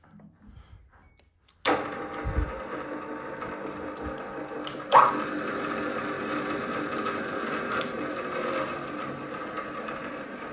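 Strands S32M geared-head drill press switched on: its two-speed three-phase motor and spindle gearbox start suddenly about two seconds in and run steadily with a hum of several steady tones. About three seconds later a loud click from the rotary motor switch, and the machine runs on.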